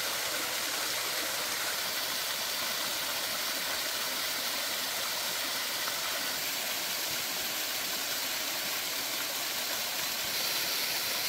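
Small waterfall at low flow: a steady, even rush of water falling onto the pool below.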